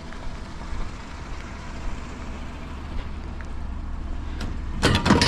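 Pickup truck engine running with a steady low rumble. Near the end comes a short, loud burst of clattering knocks.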